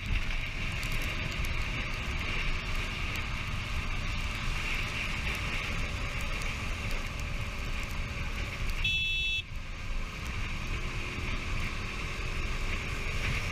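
Steady road and traffic noise with wind rumble, and a short vehicle horn beep about nine seconds in.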